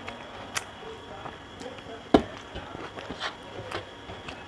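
Fingers mixing rice on a metal plate, with a few sharp clicks and taps against the plate; the loudest tap comes about two seconds in.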